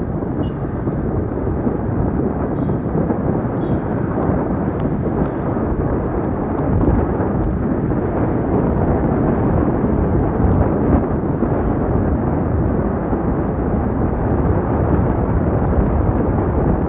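Steady wind rush and rumble buffeting the microphone of a moving motorbike, with road and traffic noise beneath it.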